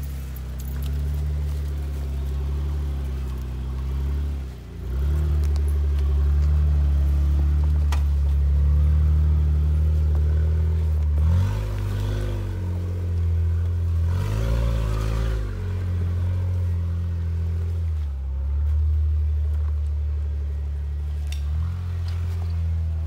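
Jeep engine running at low crawling revs as the Jeep climbs a rocky, snow-covered trail. The throttle is blipped, so the revs rise and fall back a few times: a few seconds in, about halfway through, and again about two-thirds of the way through.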